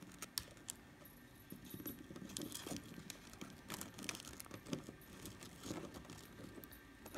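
Faint scattered clicks, taps and light scraping as stiff gingerbread wall pieces are handled and pressed against each other on a cardboard base.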